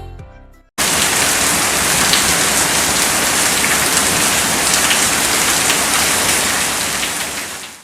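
Heavy rain falling, a steady dense hiss with scattered drop ticks. It starts abruptly just under a second in, after a fading end of music, and fades out near the end.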